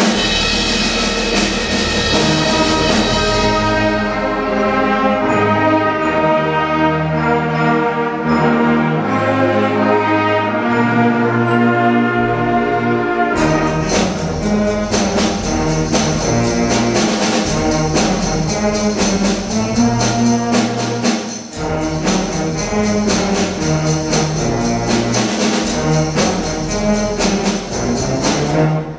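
Middle school concert band playing, opening at once at full volume with sustained brass and woodwind chords. About halfway through, percussion joins with a steady beat under the band.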